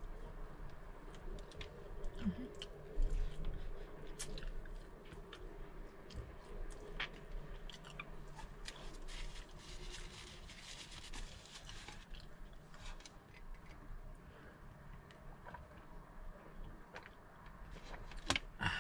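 A person chewing and biting food close to the microphone, with many small wet clicks and crunches, and light taps of food being handled on a tray.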